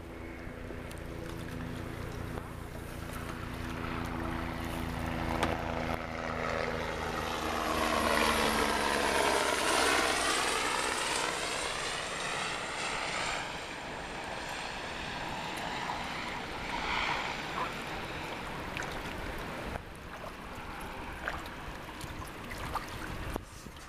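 A jet aircraft passing overhead. It grows louder to a peak about nine to ten seconds in, with a hollow sweeping sound that falls and then rises in pitch as it passes, then fades.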